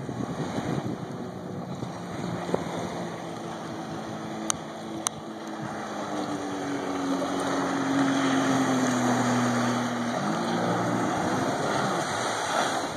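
2005 Sea-Doo RXT jet ski running hard across open water, its engine note growing louder past the middle. The pitch sinks slightly, then drops abruptly about ten seconds in.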